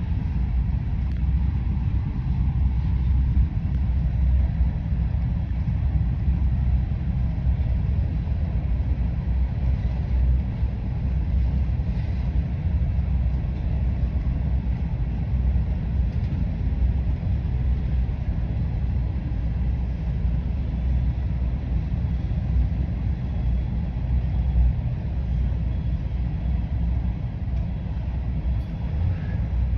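Norfolk Southern grain train rolling past, a steady low rumble with a few faint clicks.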